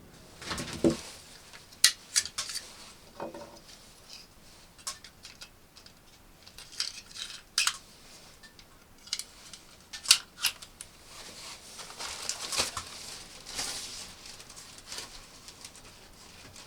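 Hard objects being handled: a string of irregular clinks and knocks, like metal utensils or cookware, over soft rustling.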